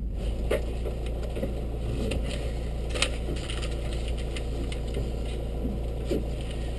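Dacia Duster rally car's engine running low and steady, heard from inside the cabin, with a few light clicks about half a second and three seconds in.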